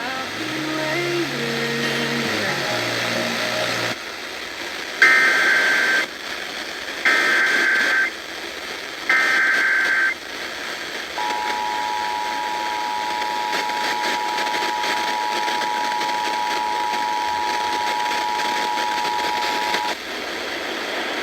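Emergency Alert System tones on a radio broadcast: a few seconds of music, then three short screeching data bursts about a second apart (the digital alert header), then the steady two-tone attention signal held for about nine seconds, all over radio hiss.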